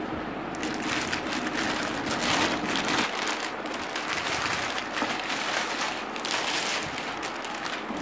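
Clear plastic wrapping bag crinkling and rustling as it is pulled off a new electric water heater: a dense crackle that starts about a second in.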